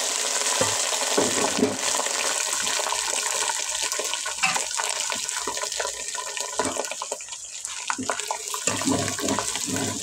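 Hot mustard-oil tadka with fried garlic sizzling as it hits a pot of wet sarson ka saag. A loud hiss full of crackles slowly dies down into separate pops.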